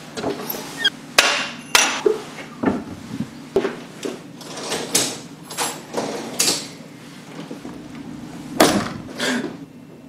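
Dishes, cutlery and cupboard doors being handled while a dishwasher is unloaded: a dozen or so sharp, uneven knocks and clinks, some with a short ring after them.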